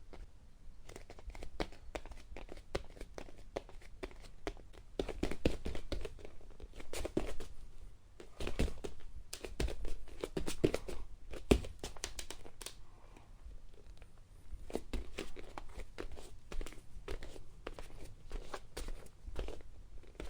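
Bare feet walking on a wooden floor: irregular soft footfalls and taps in a small room, the steps heavier and more frequent through the middle stretch.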